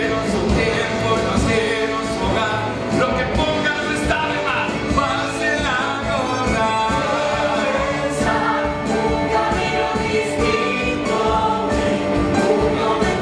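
Musical-theatre cast singing together in chorus with a live band accompanying, steady and full throughout.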